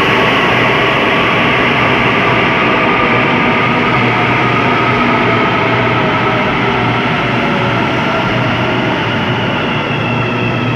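Santiago Metro train running, a steady loud rumble with the motor whine gliding slowly in pitch; a higher whine comes in near the end.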